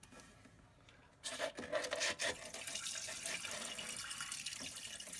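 Liquid cleaner poured from a plastic tub down into a toilet tank's flush-valve opening. It splashes and trickles steadily, starting about a second in.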